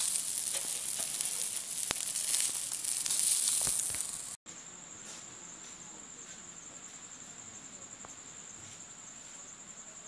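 Whole koral fish sizzling on a charcoal grill as it is basted, a loud hiss with scattered crackles and pops. It cuts off suddenly about four seconds in, giving way to a quieter, steady high chirring of crickets.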